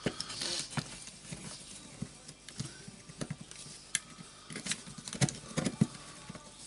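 Irregular light clicks and knocks as a Makita BDF456 cordless drill's gear assembly and motor are handled and pressed into the plastic housing half, with the sharpest taps about four seconds in and a cluster a little after five seconds.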